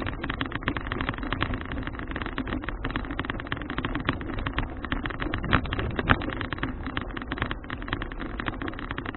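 Wind rushing over an action camera's microphone with the constant rattle and rumble of a folding bicycle being ridden over the road, and two louder knocks a little past the middle.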